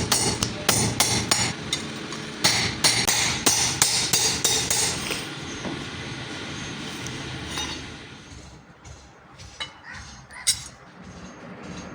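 Hand hammer forging a piece of drill-bit steel: a quick run of ringing blows, two to three a second, for about five seconds, then a few scattered light taps and one sharp knock near the end.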